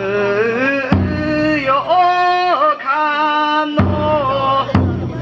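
Bon odori ondo: a lead singer's long, wavering, ornamented chant, with a taiko drum struck now and then, about a second in and twice near the end.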